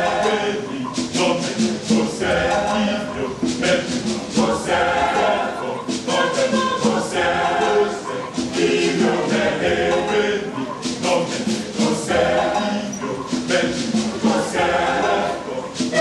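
A mixed Nigerian choir singing a motet in Esan, many voices in harmony, over sharp strikes that keep a steady beat.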